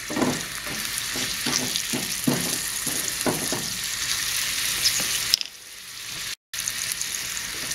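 Onions, peppers and chillies frying in hot olive oil in a thin iron pan, a steady crackling sizzle. The sizzle drops away about five and a half seconds in, cuts out for a moment, then comes back.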